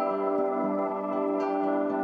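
Calm ambient music of long held chords, with new notes coming in about a second and a half in.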